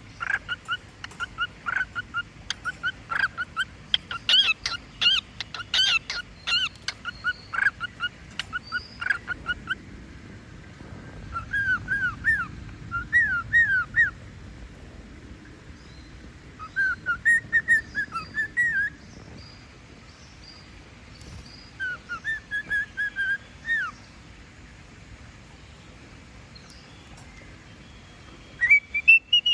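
Cockatiel whistling its song: quick, short, up-and-down whistled notes, then separate whistled phrases with pauses between them.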